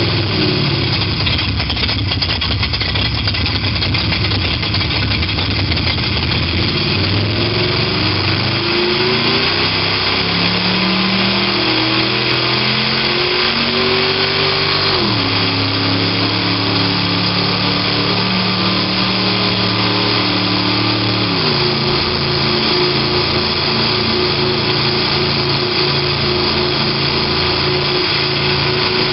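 Sampled sports-car engine sound from the XLR8 iPhone app, played through a Toyota Prius's sound system and heard inside the cabin, following the car's acceleration. It rumbles low, climbs in pitch from about seven seconds in, drops sharply about halfway through and again about two-thirds through like upshifts, then holds steady.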